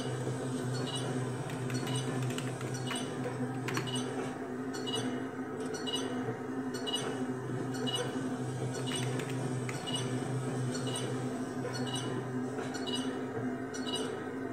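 Countdown timer ticking about once a second as it counts down, with short, sharp, clinking ticks over a steady low hum.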